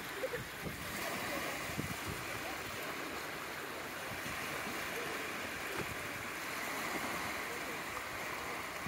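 Small waves washing onto a sandy beach, a steady hiss of surf, with light wind buffeting the microphone.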